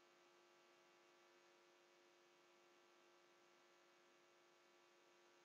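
Near silence, with only a faint steady electrical hum in the background.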